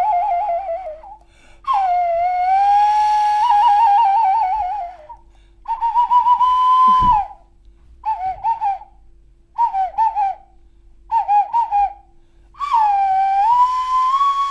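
A children's toy blow whistle played in warbling, trilling phrases and short chirps, imitating birdsong for a forest scene.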